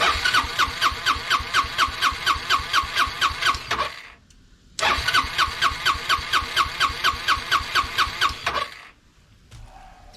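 Honda Helix scooter's single-cylinder engine cranking on its electric starter in two bursts of about four seconds each, with an even beat of about four to five pulses a second, and not catching. This is a no-start: the original fuel pump failed, and the aftermarket replacement only pulses while the starter turns.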